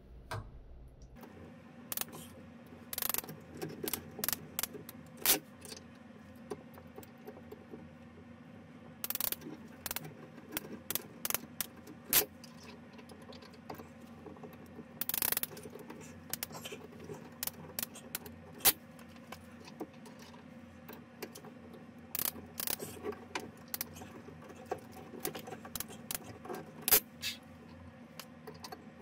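Irregular clicks, clinks and knocks of a hand tool and metal pipe fittings being worked by hand, with a steady low hum underneath.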